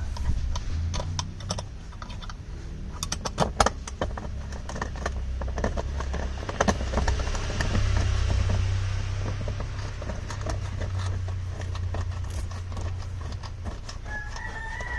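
Clicks, rattles and knocks of a hand tool working the screws that hold a van's front centre seat to its metal mounts, over a steady low rumble. Near the end a rooster crows.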